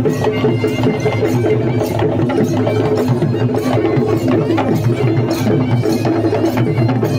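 Traditional percussion music: fast, clacking drumming over a bed of held, sustained tones, the kind of drum-led music played in a Sri Lankan perahera.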